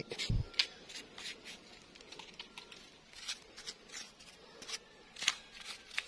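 Faint, scattered light ticks and rustles of hands and a brush working around steel turnbuckles while rust converter is applied, with a short low thump just after the start.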